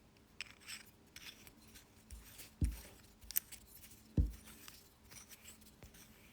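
Small clicks and rubbing of a brass mechanical pencil and its mechanism being handled and worked on to get it to feed lead again, with two soft low thumps, about two and a half and four seconds in.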